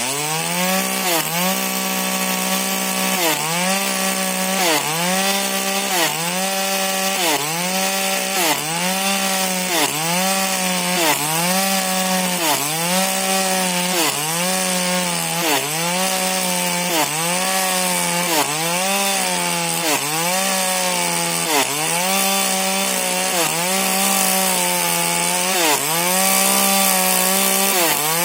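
Two-stroke 40cc Husqvarna chainsaw with a modified exhaust and an 18-inch Stihl bar, running at high revs while cutting wood. The engine pitch dips briefly under load and picks back up about every second and a half.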